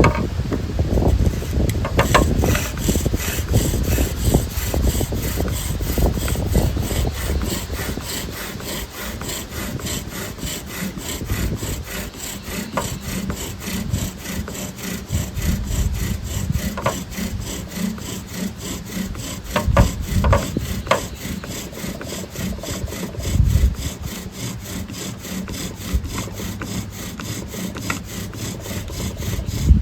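Bow drill in use: a yucca spindle spun back and forth by the bow in a spalted white oak fireboard, its tip grinding in a steady, fast stroking rhythm as it works toward an ember for a friction fire. A few louder knocks come partway through.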